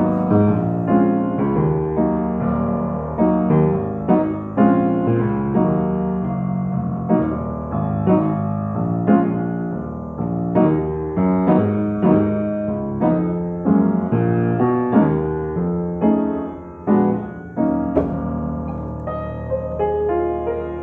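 A 1941 Steinway console upright piano being played by hand: a continuous piece of chords and melody, its notes struck and left to ring and decay.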